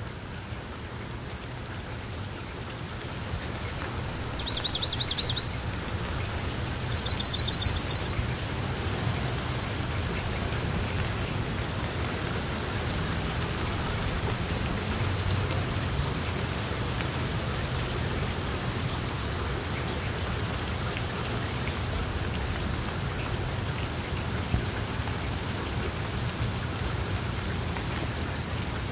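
Steady rain falling, with a low rumble underneath, growing louder over the first few seconds. About four and seven seconds in, two short, rapid, high trills sound over the rain.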